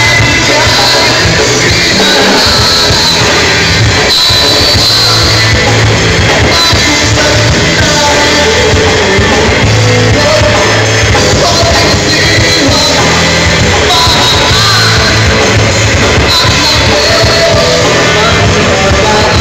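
Live rock band playing loud through a PA: a male singer over electric guitars and drums.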